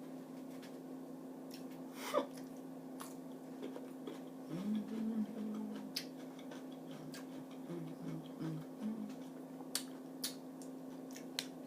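Eating sounds up close: scattered small mouth clicks and smacks from chewing mussels and salad. Twice, about five and eight seconds in, a short low hummed "mm" of enjoyment.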